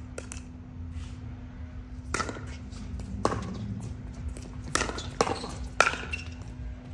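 Pickleball rally: paddles striking a plastic pickleball with sharp pops, about six hits spread through the exchange and coming quicker near the end.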